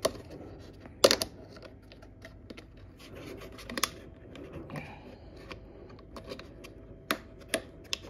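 Hard plastic clicking and scraping as snap-on plastic end caps are pressed onto a chest refrigerator's carry-handle pivots; the sharpest snap comes about a second in, with more clicks near the end.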